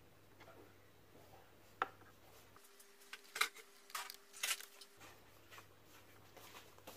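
Faint, scattered clicks and scrapes of a small metal hand tool working the transistor mounting brackets on a car amplifier's circuit board. There is one sharp click just under two seconds in and a cluster of louder clicks a little after the middle.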